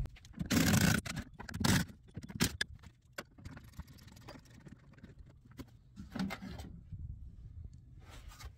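Two louder scraping rustles in the first two seconds, then scattered light clicks and scrapes of a hand tool working a screw on a pickup bed cover's metal side rail.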